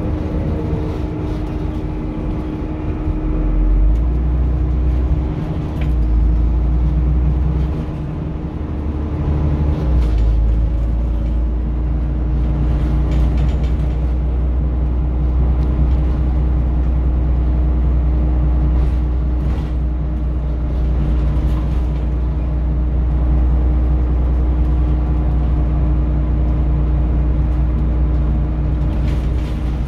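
Scania N94UD double-decker bus engine running under way with a deep rumble and a steady whine. The rumble eases off twice in the first ten seconds, and short rattles and clicks come through over it.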